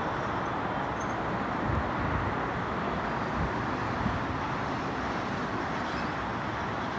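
Steady outdoor rumble of distant traffic and railway yard engines, with a few brief low wind gusts on the microphone.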